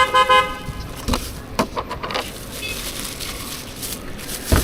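A vehicle horn honks once briefly at the start, followed by a few sharp knocks and clatters, the loudest near the end.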